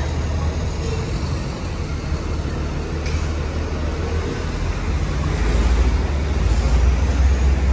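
City street ambience: a steady rumble of passing traffic that grows louder about five seconds in.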